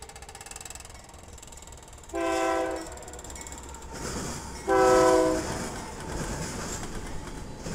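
Freight locomotive's air horn sounding two short blasts about two and a half seconds apart, the second louder, over the rumble of the approaching train; from about halfway through, the running noise of the locomotives and stack cars passing grows.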